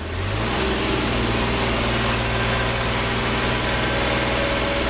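Magirus truck engine stepping up to a higher pitch within the first half second, then running steadily at the faster speed. This is a clutched downshift through the truck's unsynchronised gearbox.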